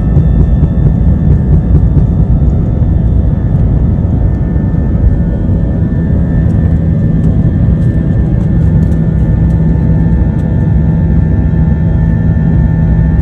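Jet airliner's engines at takeoff power, heard from inside the passenger cabin during the takeoff run: a loud, steady rumble with a low hum and a higher whine running through it.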